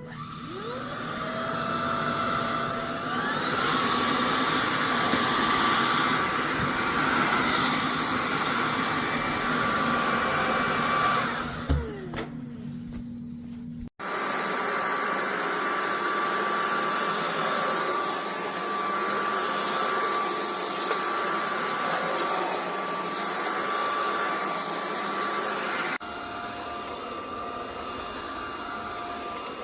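Buture cordless stick vacuum motor spinning up with a rising whine, stepping up to a higher speed about three seconds in, and winding down with a falling pitch around twelve seconds. It then runs steadily again.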